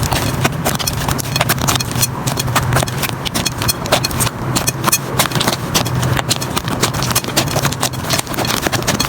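Hands squishing and poking slime: a dense, irregular run of sticky clicks and pops over a steady low hum.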